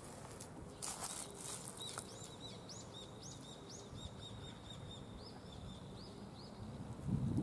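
A small bird calling: a quick run of high, thin chirps, about three a second, starting about two seconds in and stopping after about six seconds. A brief burst of hiss comes about a second in.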